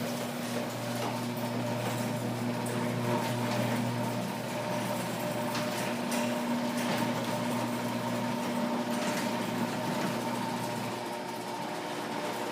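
Electric garage door openers, a Sears Craftsman and a Menards Linear, running as they raise the doors: a steady motor hum with a mechanical rattle, very noisy.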